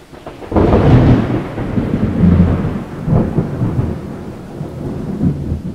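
Thunder: a sudden clap about half a second in, then a rolling rumble with a second crack about three seconds in, fading toward the end.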